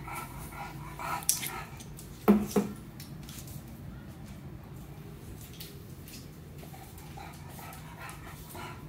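English bulldog puppy sniffing and snuffling in short repeated bursts as it noses around, with two sharp knocks close together about two and a half seconds in.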